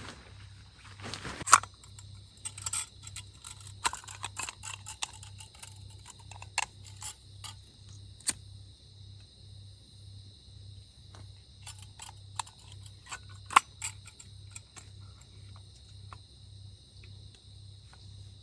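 Irregular small clicks, taps and clacks of hard objects being handled, thick at first and sparser later, with two louder sharp clacks: one about a second and a half in and one near the end.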